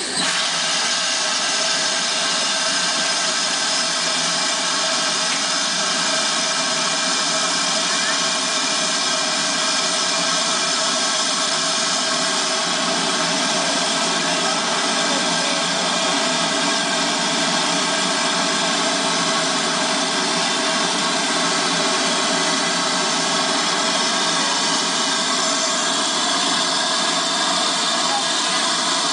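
Steam locomotive standing with steam escaping: a loud, steady hiss and rush with several fixed whistling tones in it, unchanging throughout.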